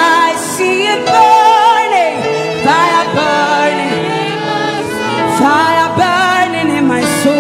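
Gospel worship music with singing: a voice sings sliding, wavering runs over steady held chords.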